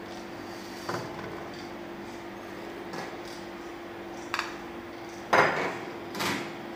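Metal kitchenware clinking and knocking on a steel worktable: flower-shaped kuih bakar molds, a metal bowl and a spoon being handled. A few light knocks come first, then two louder clattering knocks near the end, over a steady low hum.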